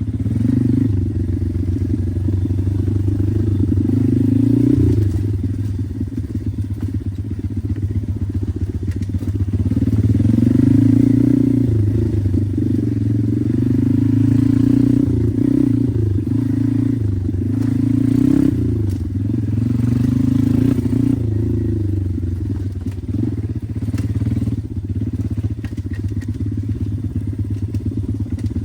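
Regulmoto Seven pit bike's single-cylinder engine running under way, the revs rising and falling over and over as the throttle is worked.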